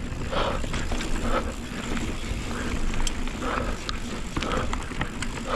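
Heavy, labored breathing close to the mic, about one breath a second, from a rider working hard at high altitude. Under it are the low rumble and the occasional sharp clicks and rattles of a Scott Ransom full-suspension mountain bike rolling down a rocky trail.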